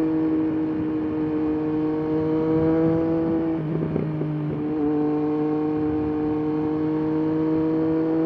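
Triumph Daytona 765's three-cylinder engine and exhaust running steadily under way, its pitch creeping slowly upward. About halfway through the note breaks up for about a second, then picks up again at about the same pitch, with wind noise underneath.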